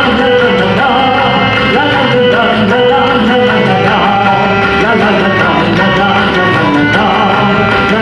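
Live band playing an upbeat rock song with a steady drum beat.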